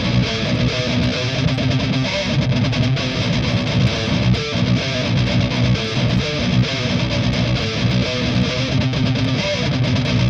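High-gain distorted electric guitar played through a Boss GT-10's amp simulation, with Orange cabinet impulse responses standing in for the GT-10's own cabinet simulation. The playing is steady and dense, with no breaks.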